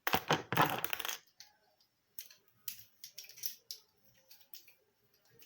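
Handling noise of small objects: a loud rattling, crinkling burst lasting about a second, then scattered light clicks and taps.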